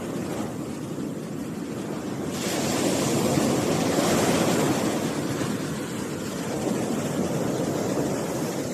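Strong sea surf breaking on the beach, a continuous rushing wash. About two seconds in, a bigger wave breaks and the surge swells up, then slowly eases off.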